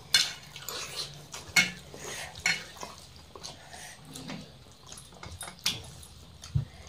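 Hands mixing and scooping rice on stainless steel plates: scattered light scrapes and clinks, with a few sharper clicks.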